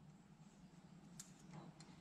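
Near silence: faint room hum with a few faint light clicks from the carburetor's choke plunger and body being handled, the clearest about a second in.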